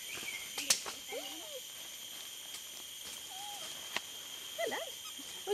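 Steady high drone of forest insects, with a sharp snap about a second in, a fainter click later, and a few brief soft calls that rise and fall in pitch.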